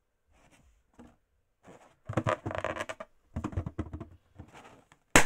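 Hands squeezing and rubbing a latex apple-shaped balloon, with bursts of rubbery squeaking and handling noise, then a single sharp bang near the end as the balloon pops.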